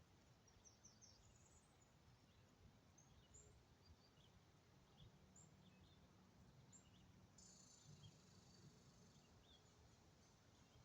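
Faint forest ambience: scattered short, high bird chirps, joined about seven seconds in by a high, steady insect trill.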